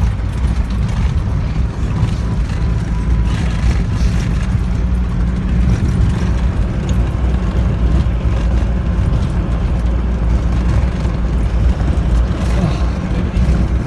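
Land Rover Defender driving along a muddy track: a steady, loud low rumble of engine and tyres, heard from outside the vehicle.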